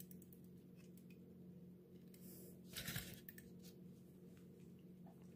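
Near silence with a faint steady hum, broken about three seconds in by a brief soft scrape as the plastic base of a diecast model display is set down on a table.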